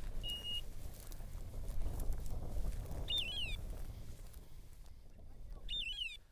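Outdoor field ambience: a low rumble of wind and rustling in dry grass, loudest in the first half. Over it come a short flat high beep near the start and two brief high chirps that rise and fall, about three and six seconds in.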